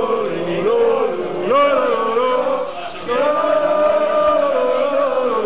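A group of football supporters, mostly men, chanting a song together, with notes held and sliding between them and one long held note through the second half.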